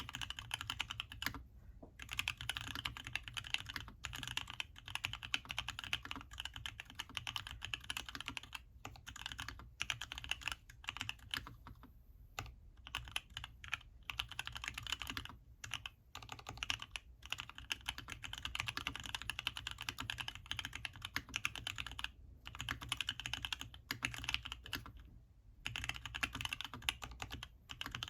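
Continuous fast typing on an LZ-CLS mechanical keyboard with lubed black Gateron Ink linear switches on a carbon fiber plate, with HammerWorks CRP Desko keycaps and sound dampening material: a dense stream of keystroke clacks broken by a few brief pauses.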